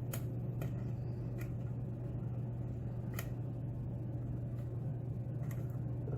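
A few faint, scattered light clicks of a hook pick working the pins of a Schlage pin-tumbler lock held under tension, over a steady low hum.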